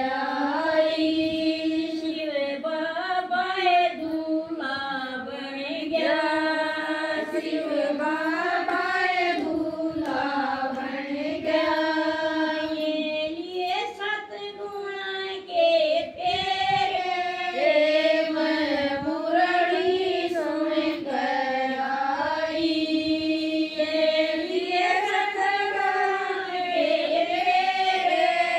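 A woman singing a Haryanvi devotional bhajan without instruments, her voice rising and falling in long held phrases.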